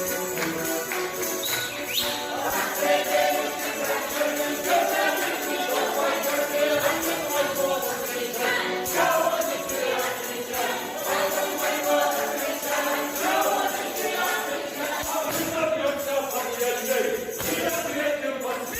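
A group of voices singing a folk song, with a tambourine and jingling bells keeping a steady beat.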